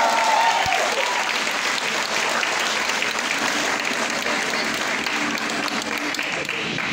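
Audience applauding, with cheering and whoops dying away in the first second.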